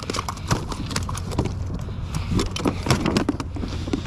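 Metal fish stringer clicking and knocking as it is handled and a fluke is clipped onto it, irregular sharp clicks over a steady low rumble.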